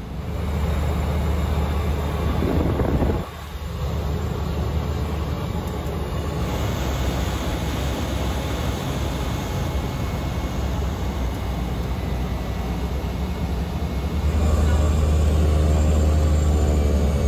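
Cessna 208B Grand Caravan's single-engine turboprop running, a steady deep drone heard from inside the cabin. It breaks off sharply about three seconds in and grows louder from about fourteen seconds.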